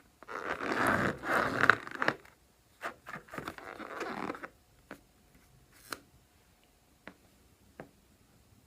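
Close-up scraping and rustling handling noise for about the first four seconds, then a few separate sharp clicks.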